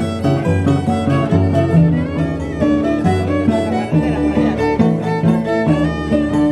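Live Andean festival music: a marcha, with a melody of held notes over steady low bass notes, played for a line of dancers.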